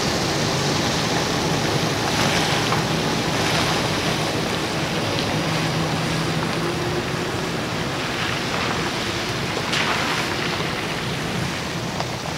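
Full-size pickup truck driving slowly across a gravel lot, its engine running steadily with tyre noise on the gravel.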